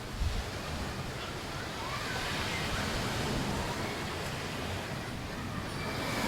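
Sea waves washing onto a beach in a steady surf wash, with faint distant voices of people over it and a brief low thump just after the start.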